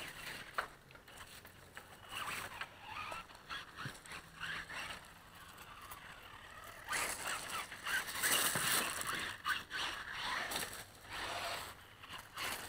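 Gravel crunching and scraping under the tyres of an Axial Yeti RC rock racer as it drives across a loose-gravel and brick path, in irregular patches at first and louder and more continuous in the second half.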